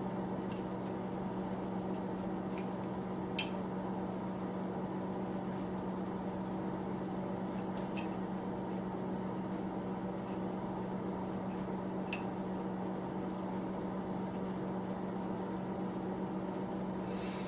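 Steady electric hum of a small space heater running, with a few faint clicks scattered through, the sharpest about three seconds in.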